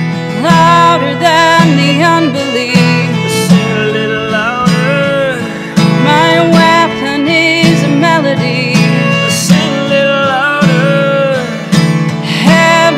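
Live acoustic worship music: a strummed acoustic guitar and a violin, with a woman singing.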